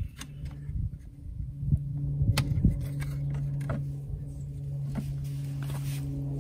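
A few sharp knocks and clanks as the old lead-acid battery and its hold-down hardware are handled in the metal battery tray, over a steady low hum.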